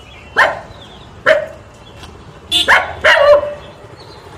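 A dog barking: four short barks, two spaced apart and then two in quick succession.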